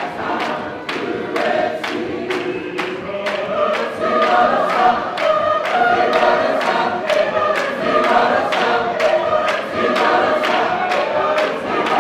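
Congregation singing together like a large choir, many voices at once, over a steady beat of sharp strikes about two to three a second.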